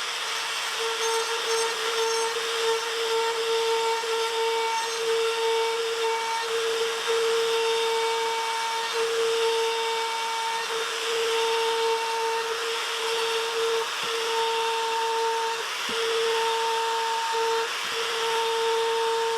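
Electric wood router running at high speed, trimming a wood block: a steady high motor whine over the hiss of the cut, the whine dropping out briefly every second or so.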